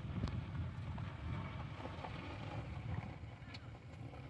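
Wind buffeting the microphone: a steady, uneven low rumble, with a couple of faint clicks.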